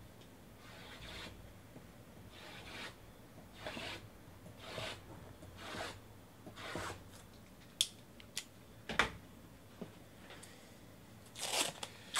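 Cardboard trading-card boxes rubbing and sliding against each other as a stack of them is shuffled by hand: a run of short brushing rubs about once a second, a few sharp clicks around the middle, and more rubbing near the end.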